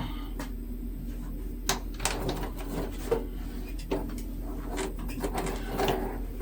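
Irregular metal knocks and clicks with some scraping as heavy steel suspension parts, a U-bolt among them, are handled and fitted on a semi-trailer axle.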